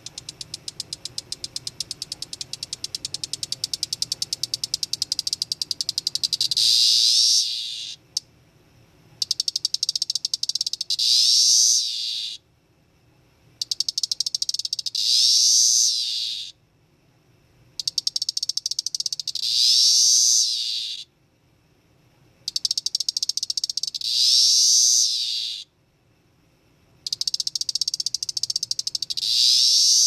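Male Magicicada tredecassini, a 13-year periodical cicada, calling six times about every four to five seconds. Each call is a run of rapid ticks that runs into a louder buzz, which swells and then falls away. The first call has a long run of ticks lasting several seconds before its buzz.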